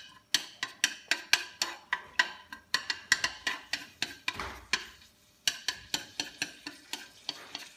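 Chopsticks tapping and scraping against a wok while stirring chopped onion in oil, about four quick clicks a second, with a short pause about five seconds in.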